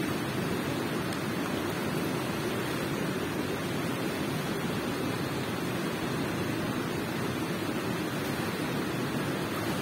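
Water running steadily in a cave: an even, deep rush with no breaks or distinct splashes.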